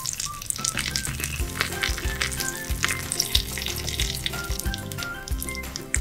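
Whole small fish frying in hot oil in a miniature steel pot: a steady sizzle with many quick crackling pops.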